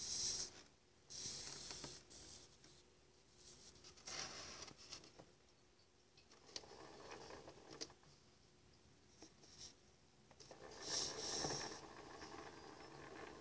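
Faint rustling and scraping noises that come and go in several short stretches, over a low steady hum.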